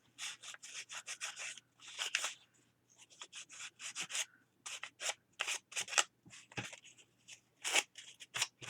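Sandpaper rubbed by hand along the paper page edges of a gluebook, in short scratchy back-and-forth strokes about two a second, with a couple of brief pauses.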